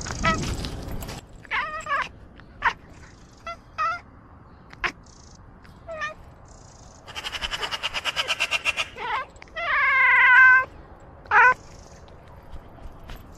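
A cat's short meows and chirps, one after another. A run of rapid stuttering calls comes about seven seconds in, and a longer meow follows near ten seconds.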